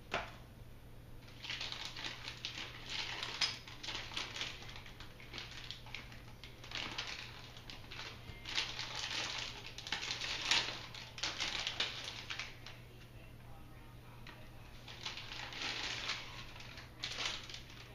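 Plastic packaging crinkling and rustling in irregular bursts as it is handled, with short pauses between, over a steady low hum.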